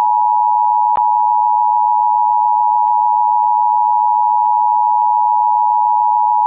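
Emergency Alert System attention signal: two steady tones sounded together as one unbroken alarm, announcing an emergency alert.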